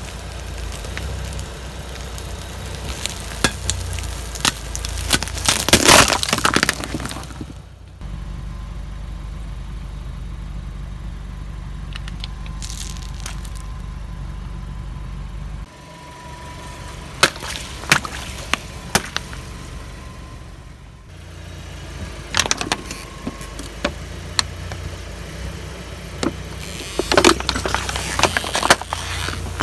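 A car tyre rolling over and crushing objects, in several short clips: bursts of crunching and crackling, including the hard candy shells of a ball covered in coated chocolates, over the low rumble of the car's idling engine. The loudest crunching comes about 3 to 7 seconds in and again near the end.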